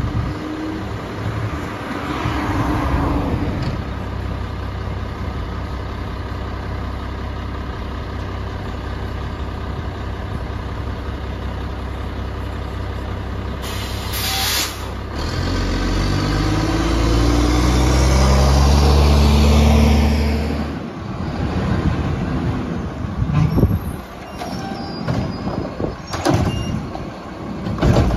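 Garbage truck idling steadily, with a short hiss of air from its air brakes about halfway through. Its engine then revs up for a few seconds and drops back, followed by a run of metal clanks and bangs.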